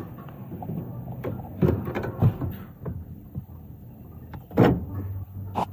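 Knocks and clunks of a rear strut assembly and tools bumping against the car's body during fitting, the loudest about four and a half seconds in, over a low steady hum.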